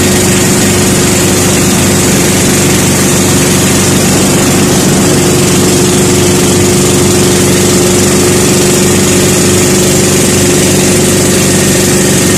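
Outrigger boat's engine running steadily and loudly with the boat under way, its pitch holding even throughout.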